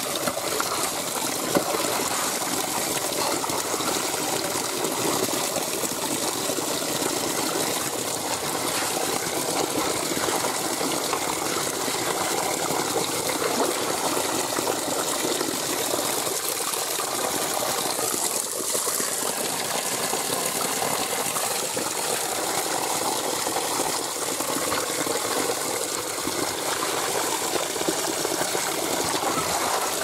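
Small spring meltwater stream running steadily over gravel and stones, a continuous rushing and gurgling of water. A few light clinks come from a rock pick stirring the wet gravel, the sharpest about a second and a half in.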